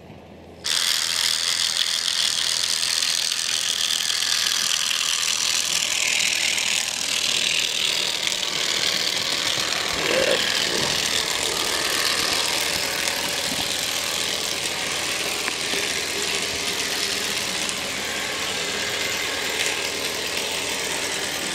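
Lux track-cleaning car for Märklin track switching on less than a second in with a sudden, loud racket, then running steadily along the rails with its vibrator shaking the cleaning pad.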